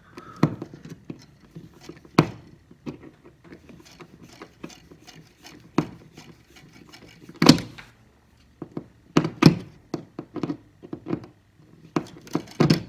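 Screws being turned by hand with a screwdriver through a plastic thermostat subplate into wall anchors: irregular clicks and knocks, a handful of them louder than the rest.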